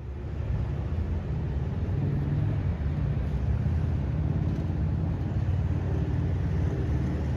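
Paris Métro MF 01 train on Line 2 rumbling through the station, a steady low rumble. A faint motor whine comes in near the end.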